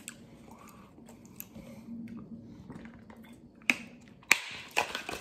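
Quiet handling noises with faint rustles and small clicks, then two sharp plastic clicks near the end as the cap of a plastic drink bottle is handled.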